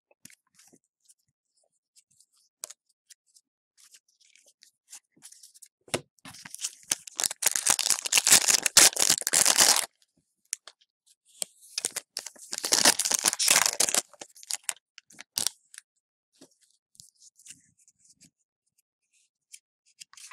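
The wrapper of a hockey card pack being torn open and crinkled by hand, in two long crackling spells about six seconds apart, with small clicks of cards being handled in between.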